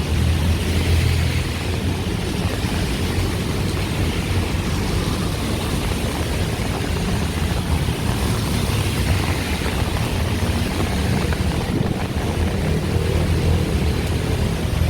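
Busy road traffic on wet, flooded streets: a steady wash of engine rumble and tyre hiss. It swells as vehicles pass close, about a second in and again near the end.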